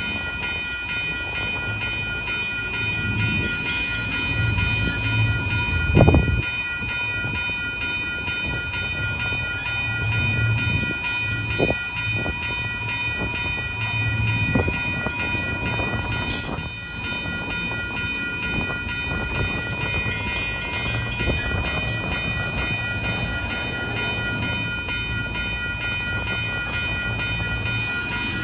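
Double-stack intermodal container train rolling past at speed, its well cars giving a steady rumble with a few sharp knocks, the loudest about six seconds in. A steady high-pitched ring sounds over the rumble.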